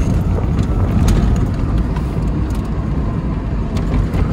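Inside a 2010 Tesla Roadster being driven hard around an autocross course: steady road, tyre and wind noise with a faint high whine, and no engine sound, since the car is electric.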